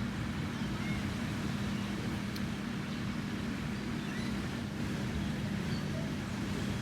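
A motor running steadily with a low, even hum that starts suddenly, over a rushing background.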